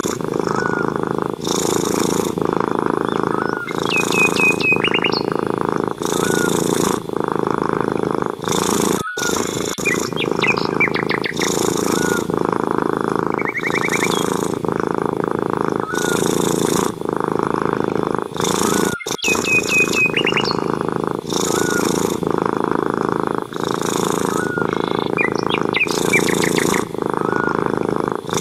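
Long-haired grey tabby cat purring steadily, the purr swelling with each breath about every two seconds. Birds chirp in short trills now and then.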